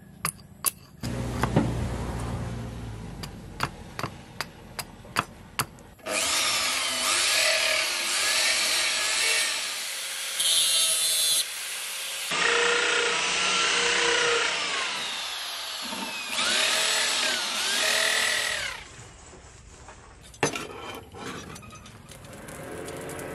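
Sharp hammer taps fitting a ferrule onto a wooden knife handle, then a power tool cutting and sanding the wooden handle for about twelve seconds, its pitch rising and falling as it bites. It drops away to a quieter stretch near the end.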